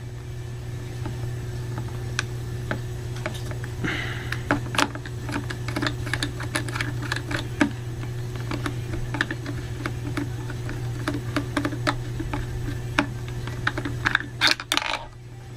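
Small plastic GoPro mounting parts and housing being handled: irregular light clicks, taps and a little rustling, over a steady low hum.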